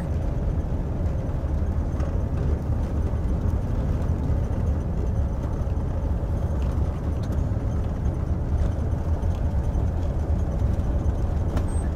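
Chevy high-top van driving slowly: a steady low rumble of engine and road noise.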